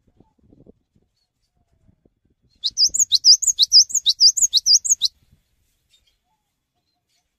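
Cinereous tit (gelatik batu) singing a rapid run of sharp, high, repeated notes, about six a second, starting about two and a half seconds in and stopping after about two and a half seconds.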